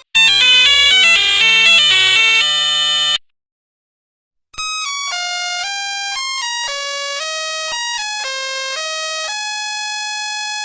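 Nokia 1100 ringtones: first about three seconds of a fuller, many-note electronic version of a tune that stops abruptly, then after a short silence a single-voice beeping melody of held notes stepping up and down for about six seconds.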